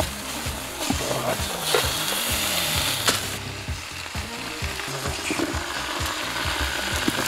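Red-hot stones sizzling and hissing as they are lowered with tongs into a hollow container of raw meat, sending up steam, with a few knocks of stone and tongs. The hiss is strongest in the first half.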